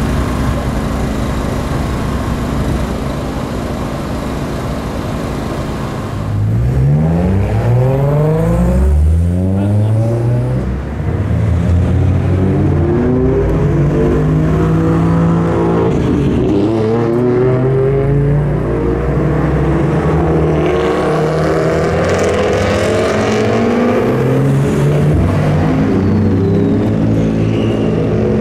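Race car engine under hard acceleration: about six seconds in it climbs in pitch through several quick upshifts, each marked by a drop in pitch. After that it holds high revs, dipping briefly now and then as it lifts and shifts.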